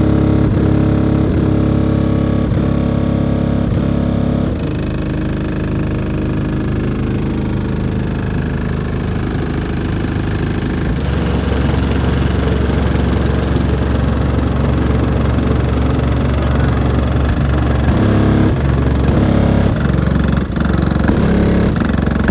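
Loud, deep bass music from two Sundown X 15-inch subwoofers in a Chevy Impala SS, driven by two P-Boyz 8K amplifiers, heard from outside the car. The low notes hold steady, with a regular beat early on and a change in the pattern about 11 seconds in.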